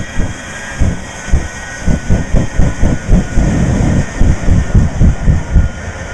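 Shockwave jet truck's Westinghouse J34 jet engines running on afterburner, firing a rapid series of loud low pops, about three or four a second, that stop near the end.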